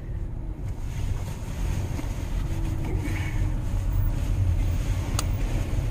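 A van running, heard from inside the cabin as a steady low rumble, with a single sharp click about five seconds in.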